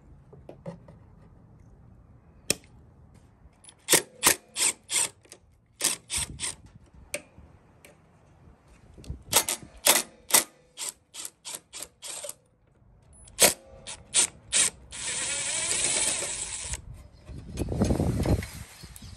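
Hand ratchet clicking in short runs of strokes while undoing the carburettor mounting bolts on a lawnmower engine, at about three clicks a second, then a spell of fast continuous ratcheting. Near the end, a brief scraping handling noise as the carburettor is worked loose.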